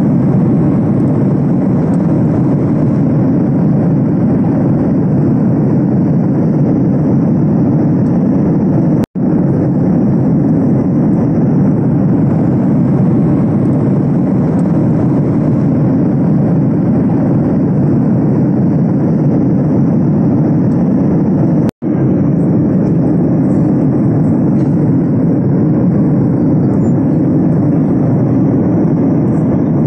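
Steady in-flight cabin noise of a Boeing 737 jet airliner: engine and airflow noise, deep and even. It drops out for an instant twice, about nine seconds in and again about twenty-two seconds in.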